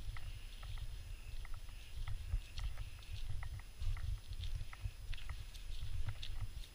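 Muffled, uneven rumbling and thumping from a chest-worn GoPro in its housing as the wearer walks a dirt trail, with light irregular clicks throughout.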